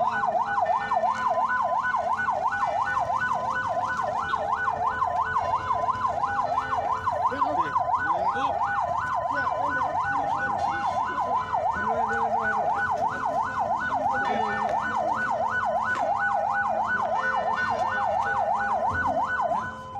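Electronic vehicle siren on a fast yelp, its pitch sweeping up and down about four times a second. It cuts off suddenly at the end.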